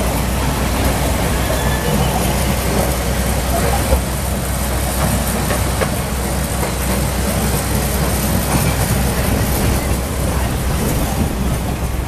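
Steady running rumble of a miniature toy train, heard from a seat in its open-sided passenger carriage.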